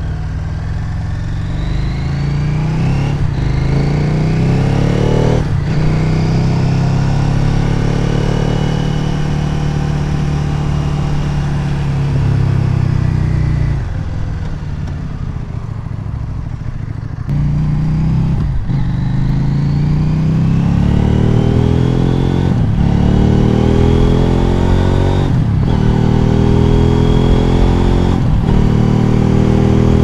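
CFMOTO Ibex 800T's parallel-twin engine through a Leo Vince slip-on exhaust with the baffle removed, accelerating hard with rising revs broken by short dips at each upshift. About halfway through the revs fall away for a few seconds, then it pulls up through several more gears.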